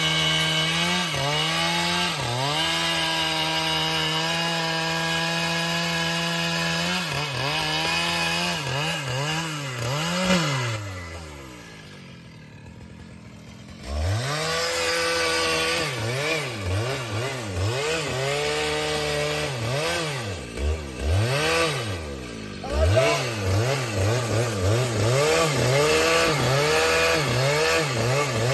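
Chainsaw cutting wood, running at high revs. Its pitch holds steady, then swings up and down over and over. About eleven seconds in it falls to a low idle for a few seconds, then revs back up with repeated surges.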